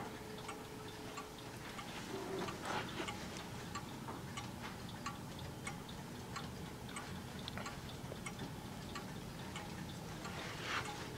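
Seth Thomas Brookfield banjo wall clock's pendulum movement ticking steadily, the escapement beating at an even rate.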